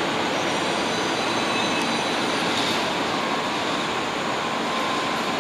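Steady rushing hum of electric trains standing at a covered station platform, with faint steady whines over it.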